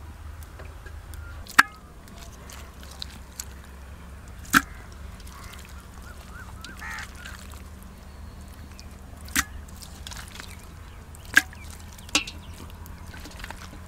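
Raw chicken pieces dropped one by one into an earthenware handi (clay cooking pot), each landing with a short sharp knock, about five of them a few seconds apart, over a low steady background.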